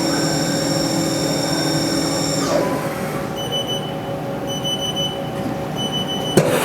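Haas TM-1 CNC mill running with a steady whine that winds down, falling in pitch, about two and a half seconds in. A high tone then pulses on and off about once a second, and a single sharp clack comes near the end as the machine goes through an automatic tool change.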